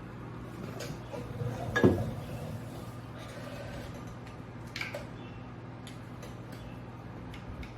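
Metal engine parts and tools clinking and clattering as a motorcycle clutch is taken apart, with one loud clatter about two seconds in and a lighter knock near five seconds, over a steady low hum.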